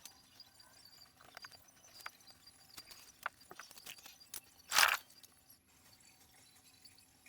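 Faint scattered clicks and small taps from hand work, with one short hiss about five seconds in.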